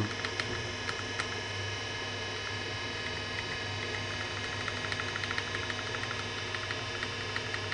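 Steady hum of a Wyse 286 PC running, with several steady tones over it, and a rapid run of light clicks from a keyboard key pressed over and over.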